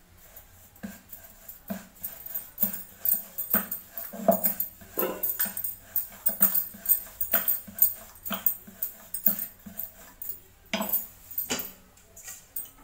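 Wooden rolling pin rolling out a dough ball on a round wooden board: a run of short knocks and creaks, about one to two strokes a second.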